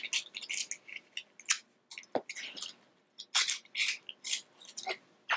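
Packaging crinkling and rustling in quick, irregular crackles as items are handled and lifted out of a box.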